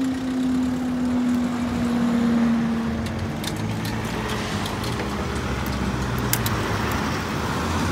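Level crossing barrier booms rising, with a steady mechanical whine that slowly falls in pitch and fades about three seconds in. Then road vehicles run and move off across the crossing, with a few sharp clicks.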